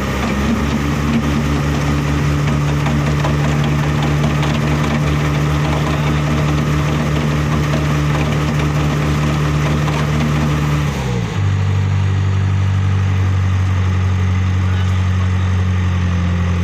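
An engine running steadily at a constant speed. About eleven seconds in, its pitch drops a step and it settles at a slightly lower speed.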